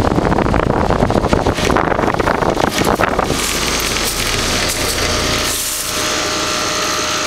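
Trane XL15i 4-ton heat pump outdoor unit running in cooling mode: a steady hum and air rush from the compressor and condenser fan, with faint steady tones. For the first three seconds a rapid rough rattle lies over it, which then gives way to the smoother hum.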